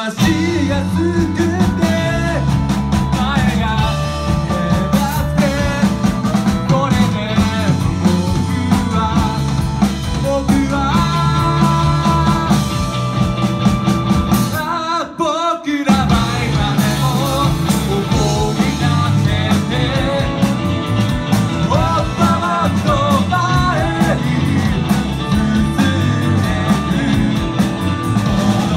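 A full rock band playing, with drums, bass and guitar under a sung melody. The music breaks off briefly about halfway through, then the band comes back in.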